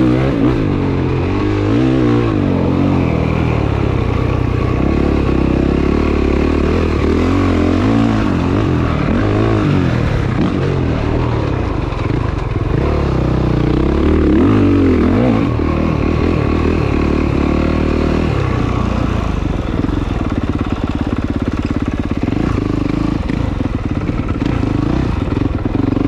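Honda CRF450R dirt bike's single-cylinder four-stroke engine, heard close up from on the bike, revving up and easing off again and again as it is ridden, its pitch rising and falling every few seconds.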